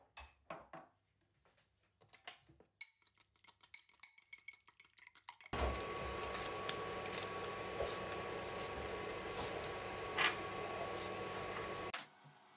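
A fork beating a duck egg in a glass bowl: quick clinks of the fork against the glass, turning into fast continuous whisking about halfway through, with a steady thin whine underneath, and stopping abruptly near the end.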